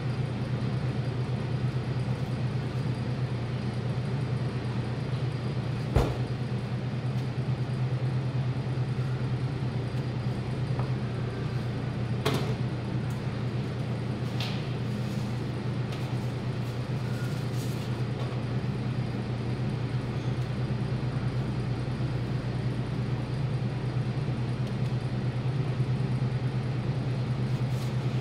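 Steady low machine hum, with a sharp knock about six seconds in and a lighter knock around twelve seconds.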